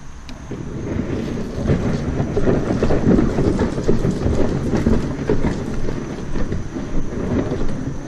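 Plastic kayak hull dragged and scraping over loose gravel, with crunching footsteps on the stones: a dense, uneven grinding rattle.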